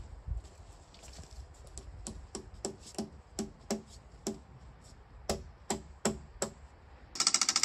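Hammer blows, a string of about fifteen sharp knocks two to three a second. Near the end a small engine starts and runs with a fast, loud rhythmic clatter.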